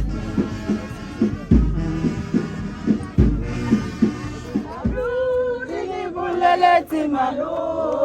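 Music with a heavy beat, a deep bass hit about every second and a half, gives way about five seconds in to a group of voices singing together.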